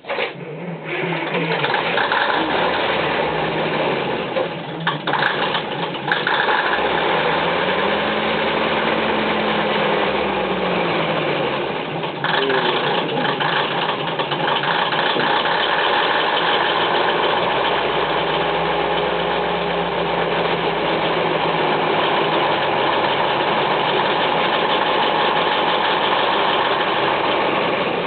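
Diesel engine of an ex-JNR KiHa 20 railcar starting up and then running steadily at idle, a rhythmic clatter heard through the open floor inspection hatch inside the car. Its pitch swells and falls once, a few seconds after it catches.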